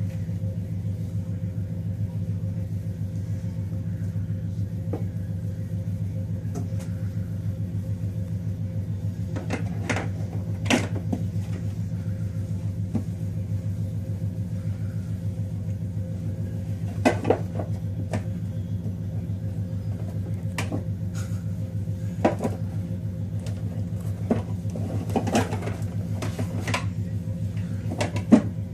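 A steady low mechanical hum, with a few sharp clicks and knocks scattered through it; the loudest knock comes near the end.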